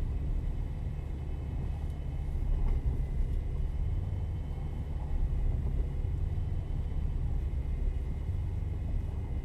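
A vehicle driving with a steady low rumble of engine and road, and a faint steady high whine.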